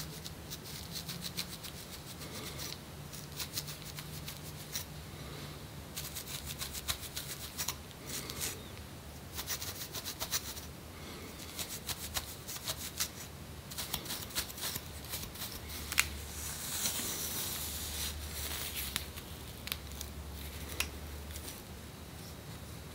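Close-up scratching and scraping of dandruff flakes off the skin and scalp (seborrheic dermatitis). It comes as runs of quick, dry clicks with pauses between, and a longer rasping scrape a little past the middle.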